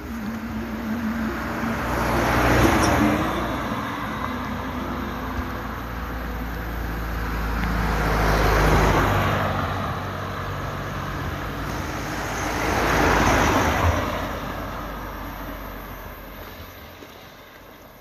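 Three cars passing one after another on an asphalt road. Each one's tyre and engine noise swells and fades, and the last has died away by the end.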